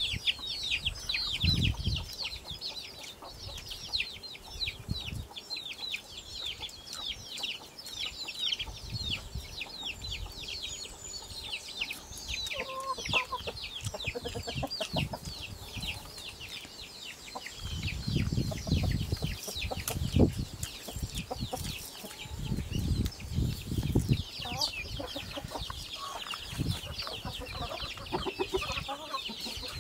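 Chickens clucking and birds chirping, a near-constant run of quick, high, falling chirps, with a few low thumps now and then.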